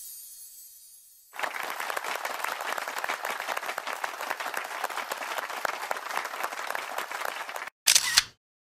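Crowd applause with dense clapping, starting abruptly about a second in and cutting off sharply near the end, followed by a brief loud burst. Background music fades out just before the applause begins.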